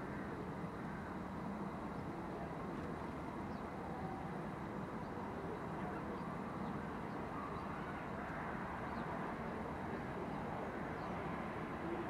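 Steady outdoor town background: distant traffic hum, with a few faint, short bird chirps scattered through it.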